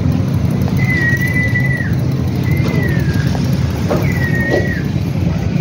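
Motorcycle and street traffic engines running with a steady low rumble. Over it, a high held tone sounds four times, about every second and a half, each about a second long and dipping at its end.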